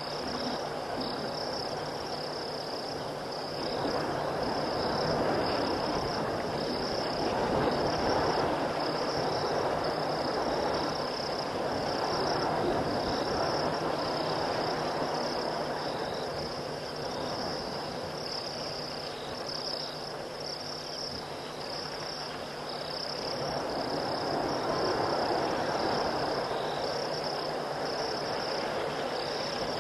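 Crickets and other night insects chirring in a steady, high, gently pulsing chorus. Beneath it, a lower, noisy layer of the night chorus swells twice, once early and once near the end.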